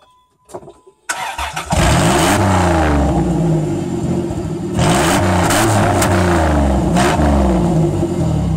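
Straight-piped 3.3 L V6 of a Dodge Grand Caravan, with no muffler. It cranks and fires about a second in, then runs loud and open with about three quick revs.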